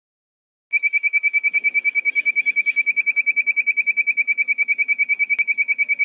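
Caged sirtu bird singing a fast, even trill of high notes, about a dozen a second at one steady pitch, starting just under a second in.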